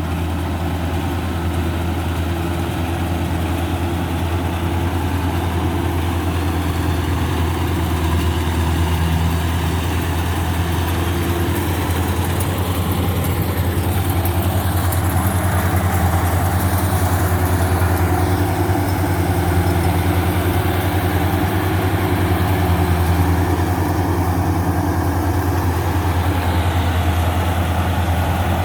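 Rice combine harvester running steadily, its engine giving a deep, constant hum.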